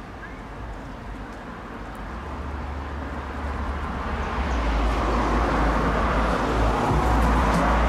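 A road vehicle passing, its noise building over several seconds to its loudest near the end.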